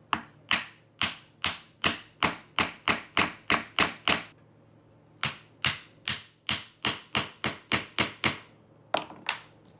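Hammer striking wood again and again, driving glued oak dowels into a birch jig: about a dozen sharp taps at roughly two to three a second, a pause of about a second, then another dozen or so.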